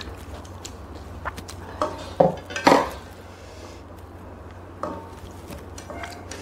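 Mukbang eating sounds: chopsticks and a spoon clicking against the pot and plates while instant noodles are lifted and eaten, with two louder slurps about two seconds in.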